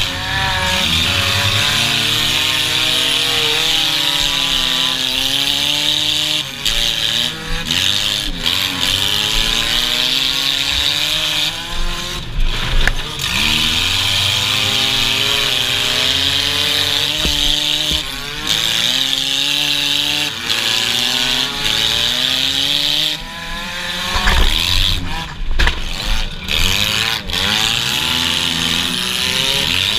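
Race car engine heard from inside the car, revving up and easing off over and over through the figure 8 turns, with a steady rushing hiss and occasional loud bangs and jolts.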